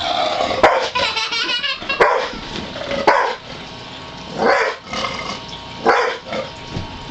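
Pit bull barking at the front door in short, sharp barks about a second apart, alarm-barking at what it takes for an intruder breaking in.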